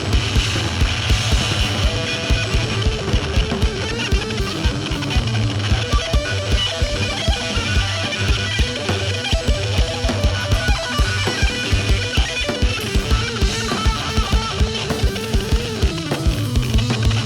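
Rock band playing: electric guitar riffing over a fast, steady kick-drum beat on a full drum kit.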